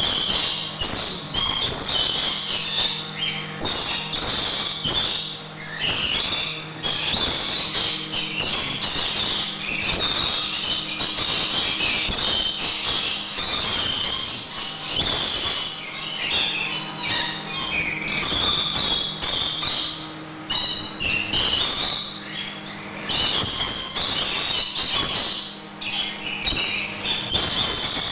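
A flock of lorikeets chattering and screeching almost without a break, with short lulls, over a steady low hum.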